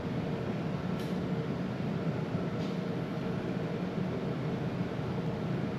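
Steady machine hum with a faint click about a second in and another a little later.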